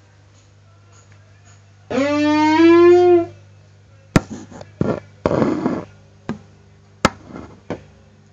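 A single held musical note, rising slightly in pitch, about a second and a half long, over a steady low hum. It is followed by a few sharp clicks and short rustling bursts.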